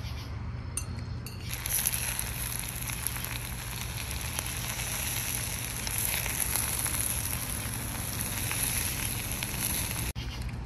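Food sizzling: a steady crackling hiss that starts about a second and a half in and cuts off near the end.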